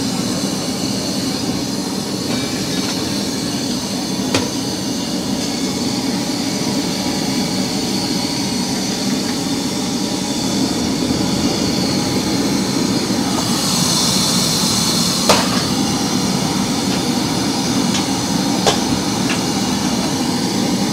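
Steady roar of open gas flames under karahi pans, with butter frying and sizzling. A few sharp clicks, and a brief louder hiss about two-thirds of the way in.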